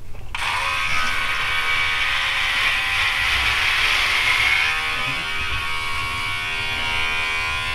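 Remington HC4250 cordless hair clipper switched on and buzzing steadily as it cuts through beard along the jaw and neck. It starts about a third of a second in.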